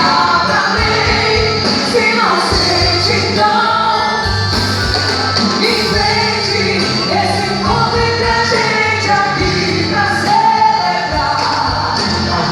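Loud quadrilha junina song with singing over a steady beat.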